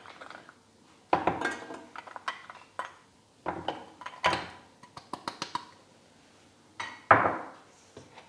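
Chocolate pieces tipped off a plate into a stainless-steel saucepan of cream, with a string of short clinks and knocks of the plate and chocolate against the pan, the loudest near the end.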